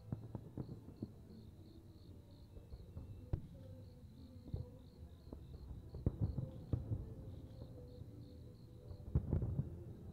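Fireworks shells bursting, heard as a scatter of dull thuds and crackles that come in clusters, busiest about six seconds in and again near the end, over steady cricket chirping.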